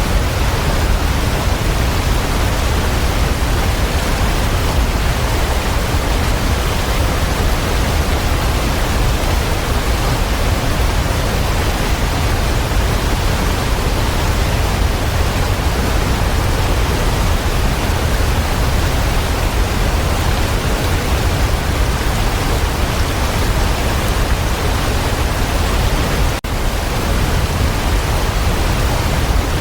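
Waterfall rushing in a steady, loud, even roar of water with a deep low end, broken only by a momentary dropout near the end.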